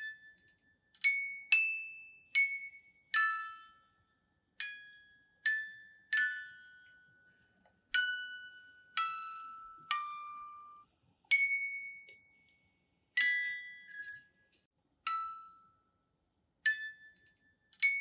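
Music-box melody: single high chiming notes, about one a second, each struck sharply and ringing out before the next.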